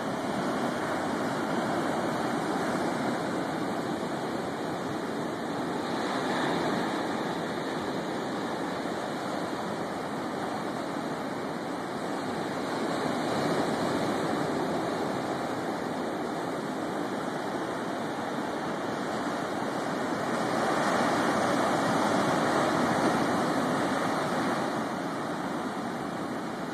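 Ocean surf breaking and washing up a sand beach: a steady rushing wash that swells louder several times, loudest about three-quarters of the way through.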